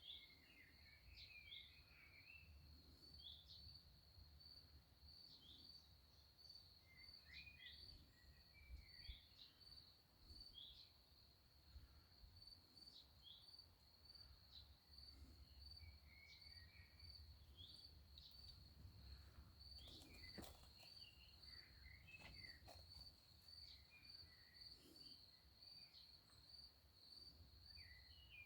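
Faint outdoor ambience: a steady high-pitched insect trill, with scattered short bird chirps and twitters over it.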